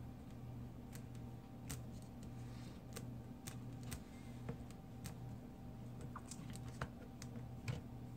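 Faint, scattered clicks and taps, about ten in all, as an opened iPad mini's frame, connector and loose digitizer glass are handled and the screen is laid back down. A steady low hum runs underneath.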